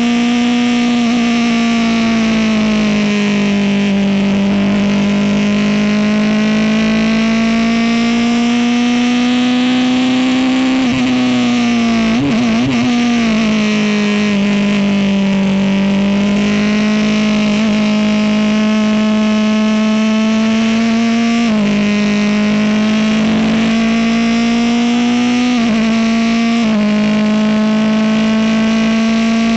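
Honda engine of a Ligier race car running hard on a qualifying lap. Its note climbs slowly through each gear and drops sharply at upshifts, three times in the last third. About twelve seconds in there is a brief unsteady stretch of shifting pitch.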